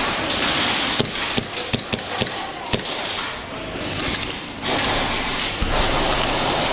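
Airsoft gunfire exchange: a quick, irregular series of about seven sharp clacks of shots and BBs striking hard barricades, starting about a second in, over steady background noise.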